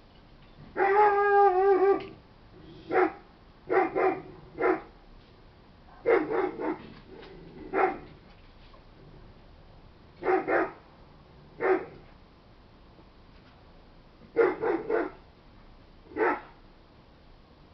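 A dog barking off-camera. It opens with one long, steady-pitched call of about a second, then gives short barks every second or two, often two to four in quick succession.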